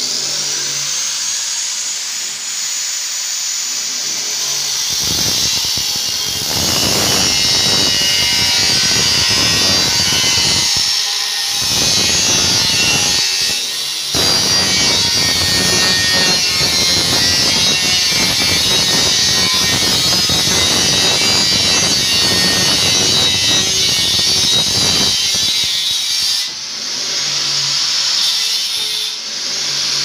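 Angle grinder with a cut-off disc cutting sheet-steel cable tray. The motor starts with a high whine rising as it spins up, then a harsh grinding rasp as the disc bites into the metal, easing off briefly a few times when the disc lifts from the cut.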